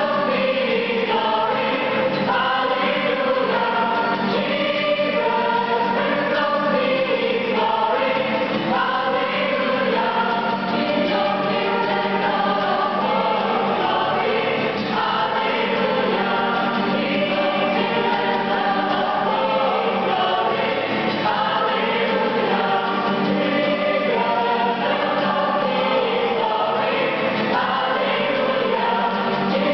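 Mixed gospel choir of women's and men's voices singing together, accompanied by acoustic guitar.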